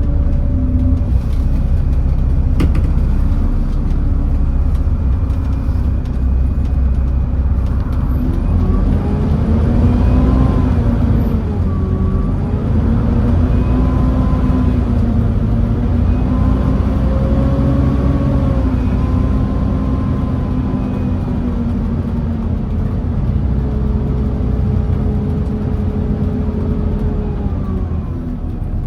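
Volvo B7TL bus's D7C six-cylinder diesel engine running, heard from inside the bus as a steady deep rumble. From about eight seconds in, its note rises and falls several times as the bus pulls and eases off.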